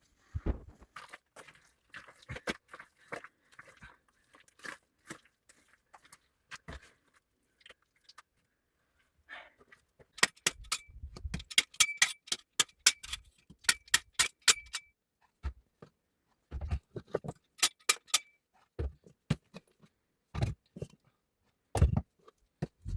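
Irregular sharp knocks and clinks, with a dense run of bright, slightly ringing metallic clinks partway through and a few heavier thuds near the end.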